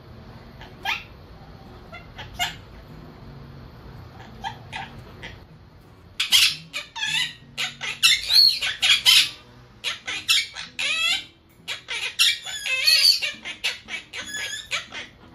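Monk parakeet chattering: a few short, sharp chirps at first, then from about six seconds in a dense run of rapid, wavering calls and squawks that stops near the end.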